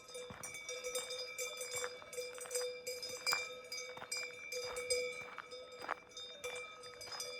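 Several cowbells clanking irregularly, their tones ringing on between the strikes.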